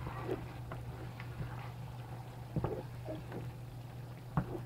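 Wooden spoon stirring a thick tomato stew in a pot, with scattered soft knocks and scrapes against the pot, over a steady low hum.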